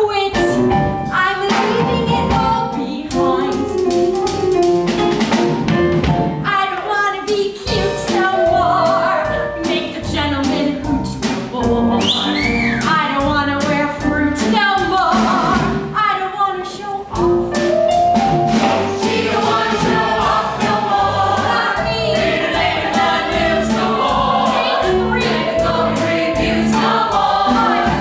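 A live musical-theatre show tune: a woman singing the lead, with ensemble voices joining in, backed by a small band with a drum kit. A sung note swoops upward about twelve seconds in.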